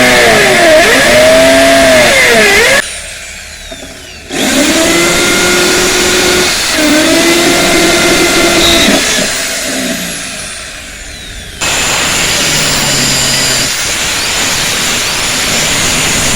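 Electric grinder running loud on steel, its whine sagging in pitch and recovering as it is pressed into the work and eased off. It cuts off abruptly several times. From about twelve seconds in it gives a steadier grinding hiss.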